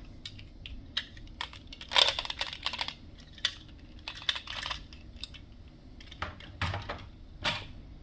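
Glass marbles clicking and clattering down a wooden marble run. Irregular sharp clicks come in quick flurries, the densest about two seconds in and again a little past the middle, with single clicks between.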